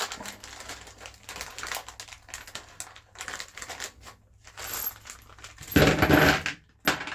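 Small metal hardware (bolts, nuts and spacers) clinking and clicking as it is handled on a table, with a louder burst of clattering about six seconds in.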